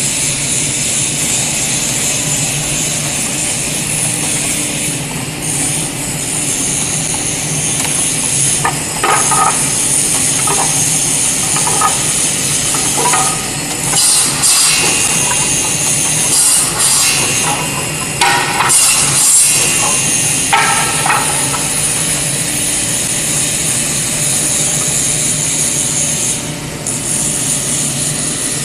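Wood pallet saw machine running: motors and spinning saw blades give a steady whine. Through the middle stretch come a series of louder, short bursts as boards are carried through the saws and cut.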